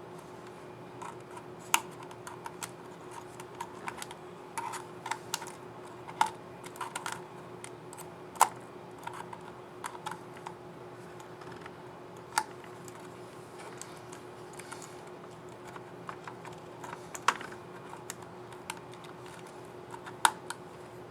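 Small plastic clicks and taps from the HP Envy 15 AS laptop keyboard's keycaps and scissor mechanisms as they are fitted and pressed. The clicks come at irregular intervals, with about six sharper ones standing out, over a faint steady hum.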